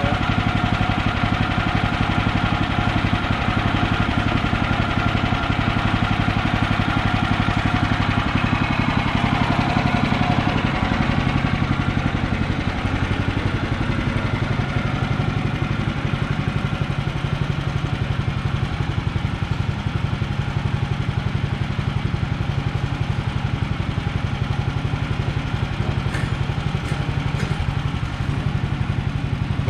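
Woodland Mills HM130MAX band sawmill running steadily, its gas engine driving the band blade through a log, with the engine pitch rising slightly about halfway through. A few faint clicks near the end.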